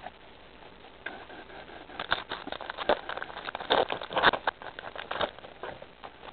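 Crinkling and tapping of a foil Pokémon booster pack and trading cards being handled: a quick, irregular run of light crackles and taps, busiest from about two to five seconds in.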